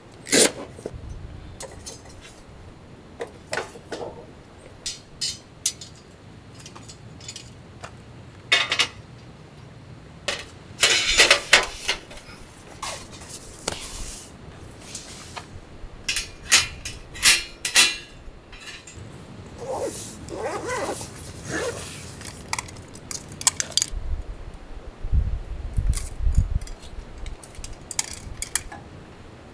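Camping gear being handled: canvas and nylon bags rustling and shifting, with small hard clicks and clinks in bursts. There are a few low thumps about three-quarters of the way through.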